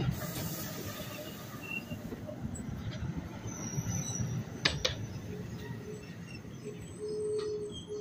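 NJ Transit bi-level commuter coaches rolling past at close range, a steady rumble of wheels on rail with two sharp clacks just before the halfway point. In the second half the grade-crossing bell's ringing tone comes in and repeats with short breaks.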